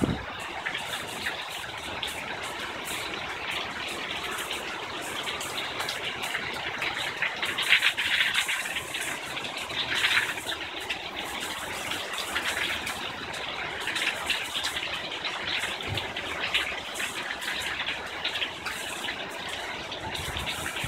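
Heavy rain pouring down in a steady dense hiss, with water streaming off the edge of a balcony overhead; it swells louder briefly about 8 and 10 seconds in.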